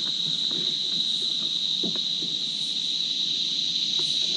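Steady, high-pitched drone of insects calling, with a few faint knocks from handling as a fish is unhooked with pliers on the kayak deck.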